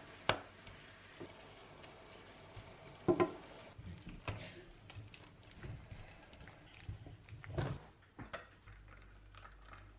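Kitchen sounds: a wooden spatula stirring and knocking against a frying pan of faintly sizzling minced meat, then scattered scrapes and taps from a box grater on cheese. A handful of sharp knocks stand out, the loudest about three seconds in.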